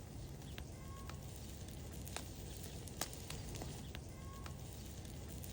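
Quiet outdoor ambience with a low steady rumble and scattered faint clicks, and a short bird chirp heard twice, about a second in and again about three seconds later.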